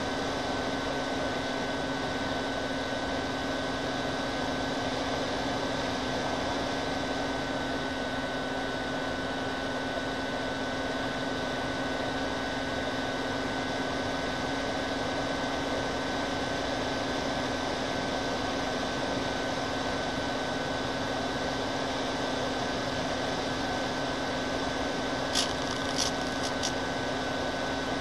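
The motors and propellers of a twin-engine FPV model airplane in flight make a steady drone, with a steady high whine above it. A few short clicks come near the end.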